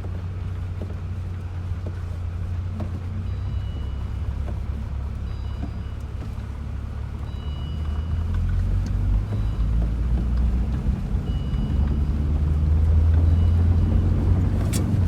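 UAZ Patriot SUV driving over a rough field, heard from inside the cabin: a steady low engine and road rumble that grows louder about halfway through as it picks up speed.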